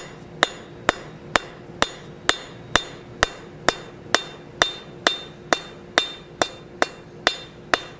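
Light, even taps of a cross-peen hammer on a hot steel leaf resting on an anvil, about two blows a second, each with a short metallic ring and a low anvil ring carrying between blows. The overlapping light blows are texturing the hot oak leaf, just enough to leave an impression without moving the metal.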